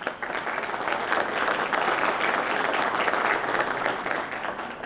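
Audience applauding: dense clapping from many hands that starts just after a talk ends and begins to die away near the end.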